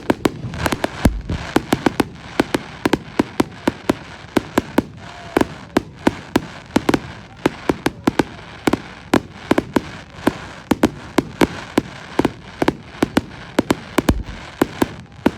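Fireworks display: a rapid, irregular barrage of sharp bangs and crackles, several a second, with a couple of deeper booms about a second in and near the end.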